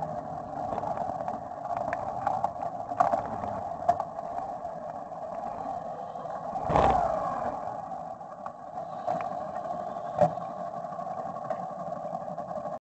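Motorcycle engine running steadily at low speed and idling, with a few sharp knocks and a louder swell that falls in pitch about seven seconds in.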